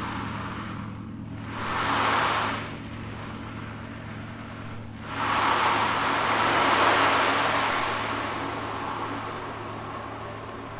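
Ocean drum rocked back and forth, its rolling beads making wave-like swooshes: one fading in the first second, another about two seconds in, then a longer surge about five seconds in that slowly dies away. Under it a Paiste gong gives a low, steady hum.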